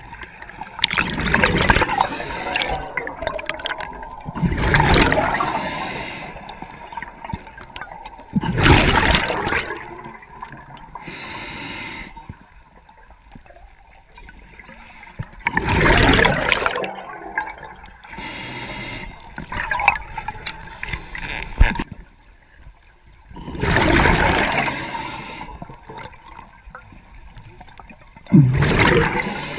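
Scuba diver's regulator breathing underwater: exhaled bubbles gush and gurgle past the microphone every four to seven seconds, with fainter hissing inhalations between them.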